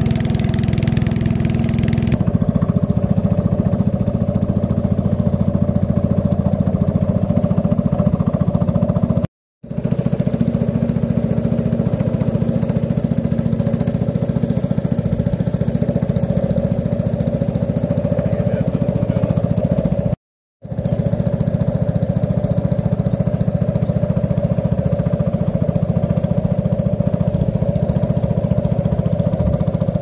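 A small boat's motor running steadily under way, with a steady low engine tone; the sound breaks off briefly twice.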